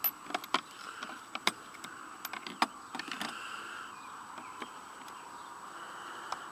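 Chrome sockets clicking against each other and against a plastic socket-set case as a hand picks through them: a quick run of sharp clicks for the first three seconds or so, then only a few scattered ones.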